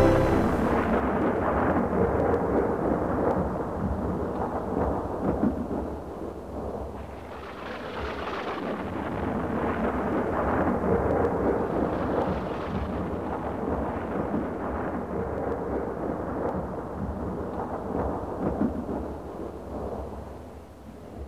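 Low rumbling noise with a hiss, swelling twice and fading out near the end.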